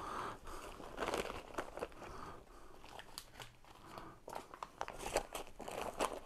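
Crinkling and rustling of a white insulating meal-kit box liner being handled and pulled about, in irregular bursts with small clicks.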